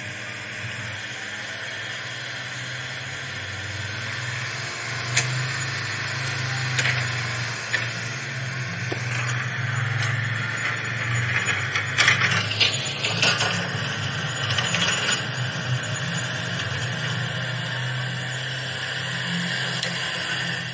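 Small electric motors and plastic gears of a toy remote-control excavator whirring steadily as it pushes itself upright with its boom from lying on its side. A few sharp clicks and scrapes come through, the loudest cluster about twelve seconds in.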